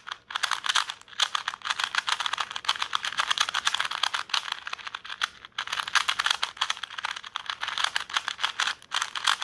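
KungFu 2x2 plastic speed cube being turned quickly in the hands, a dense run of rapid clicks and clacks from the layers snapping round, with a short pause about halfway through.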